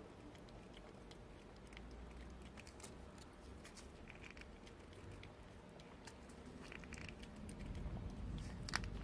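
A cat eating: faint, scattered small clicks and smacks of chewing and licking, with one sharper click near the end.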